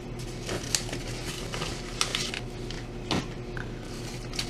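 A few light clicks and taps of small hard parts and tools being handled on a workbench, spaced irregularly, with a faint steady hum underneath.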